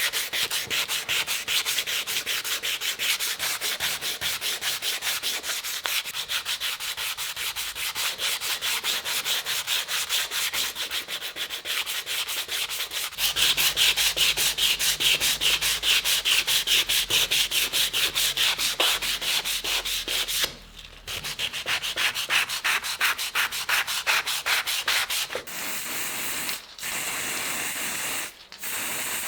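Fast, rhythmic back-and-forth rubbing of an abrasive against the cleaver, about four strokes a second. The strokes get louder about halfway through, pause briefly, then turn shorter and more broken near the end.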